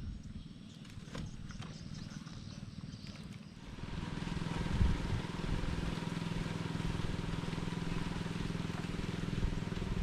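A small engine running steadily, coming in about four seconds in and holding an even pitch; before it, a few faint clicks.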